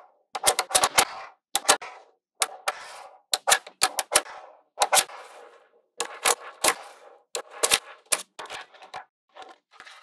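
Small neodymium magnetic balls clicking and snapping together in quick clusters of sharp clicks, each followed by a brief rattle as the balls settle against one another.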